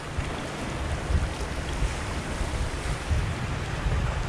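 Wind buffeting the microphone in gusts, over a steady wash of shallow sea water.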